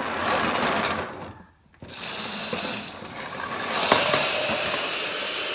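Small toy engines' gears whirring and rattling as they run across a wooden floor, with a short break about one and a half seconds in and a sharp click near the end.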